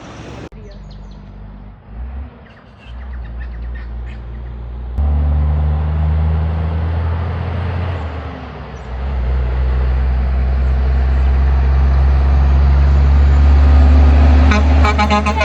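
Heavy truck approaching along the road and passing, its diesel engine drone building over several seconds and loudest near the end, when its pitch starts to fall as it goes by. Birds chirp faintly in the first few seconds.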